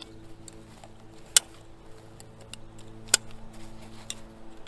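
Plastic side-release buckles on a life jacket snapping shut: two sharp clicks, one about a second and a half in and another just after three seconds, with fainter ticks of the straps between. Faint steady background music runs underneath.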